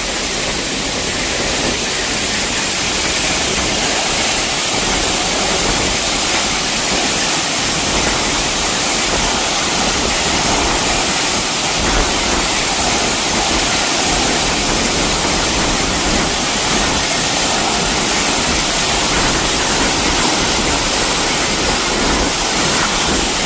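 A powerful waterfall crashing down close by: a loud, steady rush of falling water that does not let up.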